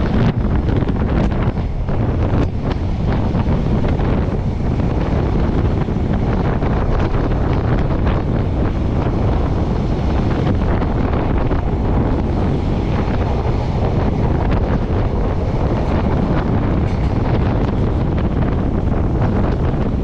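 Wind buffeting the microphone of a camera at the window of a moving train, over the steady rumble of the train running on the rails.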